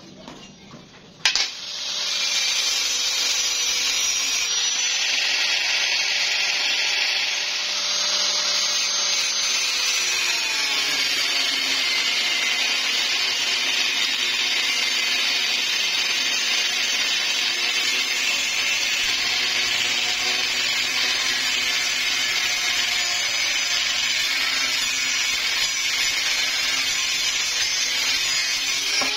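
Angle grinder switched on about a second in and spinning up with a high whine, then its thin cutting disc grinding through steel angle iron. A few seconds later the motor's pitch drops as it comes under load in the cut, and it stays there steadily.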